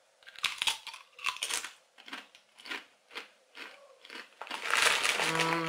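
A Doritos tortilla chip being bitten and chewed, a string of crisp crunches a few a second. Near the end a louder rustling noise and a closed-mouth hummed 'mmm'.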